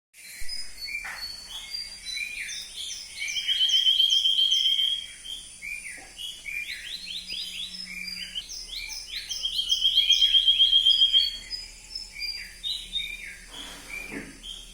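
Several birds chirping in short, repeated calls. Twice a rapid, even high trill rises above them, about three seconds in and again about nine seconds in, and is the loudest sound.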